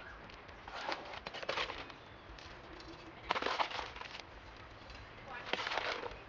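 Water splashing onto the soil of a carrot seedling bed as it is watered, in three short spells of spray a couple of seconds apart.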